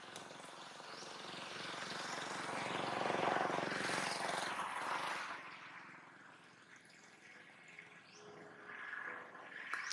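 A motor vehicle passing, its noise swelling to a peak three to four seconds in and fading away by about six seconds. Faint short rising chirps near the start and again near the end.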